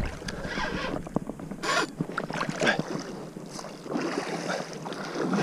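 Irregular splashing and sloshing of water with scattered short knocks, while a hooked wels catfish is being fought.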